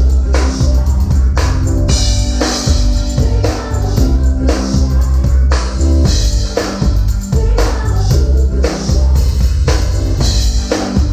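A live band playing: a drum kit keeps a steady beat over a heavy bass line, with held notes from other instruments above.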